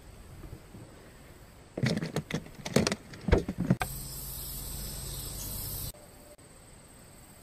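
Handling noise from a freshly caught bluegill at a plastic cooler: a cluster of sharp knocks and clatters lasting about two seconds. A steady rushing noise with a low hum follows for about two seconds and cuts off suddenly, leaving a faint, steady, high-pitched insect drone.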